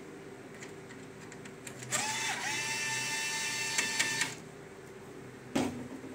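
Cordless drill-driver motor running for about two seconds as a steady whine, backing out a screw that holds a copier's HVT high-voltage board. A sharp click follows near the end.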